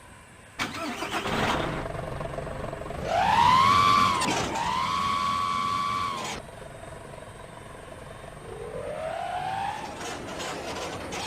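Bus horn sounding one long high note that swoops up, dips briefly, then holds steady before cutting off sharply, over the noise of a bus engine. A fainter rising tone follows near the end.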